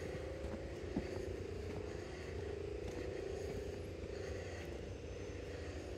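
Steady low hum of distant motor traffic, with a few faint footsteps on a dirt path.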